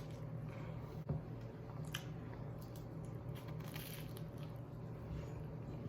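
Faint crunching and chewing of a person biting into toast, with a click about a second in, over a steady low hum.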